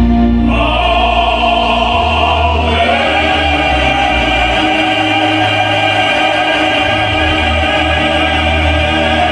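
Music with a choir singing long held chords. The chord changes about half a second in and again near three seconds.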